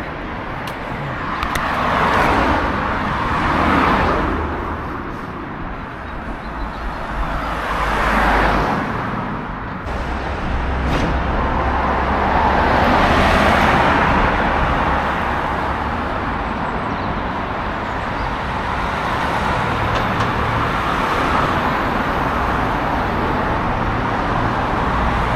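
Road traffic: cars passing one after another, each swelling up and fading over a couple of seconds, over a steady low rumble; from about halfway through the noise runs steadier.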